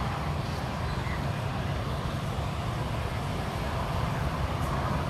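Steady outdoor urban background noise: a constant low rumble with a faint general hum of the street around it.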